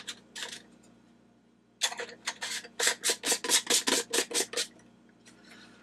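Lens bezel being twisted back onto the head of a Kobra UV scorpion flashlight, plastic scraping on its threads: a few clicks at first, then after a pause a quick run of scraping clicks, about five a second, lasting about three seconds.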